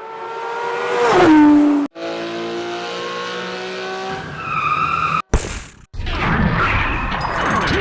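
Edited Gundam mecha sound effects: a mechanical whine that drops sharply in pitch about a second in, then steady humming tones, a brief sharp hit after abrupt cut-outs, and a rush of noise with a rising whine near the end.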